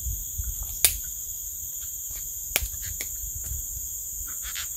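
A steady chorus of insects chirring high-pitched, with two sharp clicks, one about a second in and one midway.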